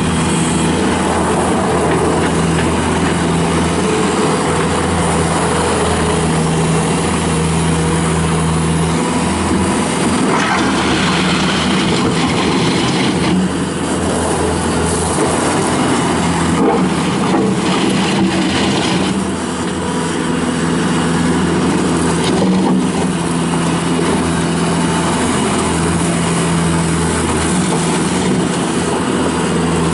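Engine of a 2007 Bobcat S330 skid steer loader, a diesel, running steadily for the whole stretch. Its pitch and load shift a few times in the middle, and its loudness dips briefly twice.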